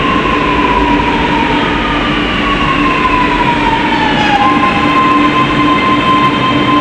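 Metro train's electric traction drive whining as the train moves along the platform. The whine falls steadily in pitch as the train slows, then holds one steady tone from about two-thirds of the way in, over a steady low hum.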